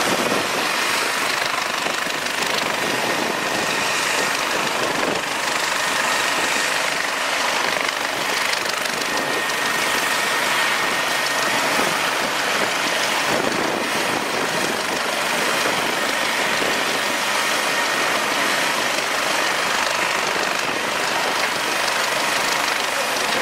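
Air-ambulance helicopter's turbine engines and rotor running at ground idle: a steady rushing noise with a faint high whine.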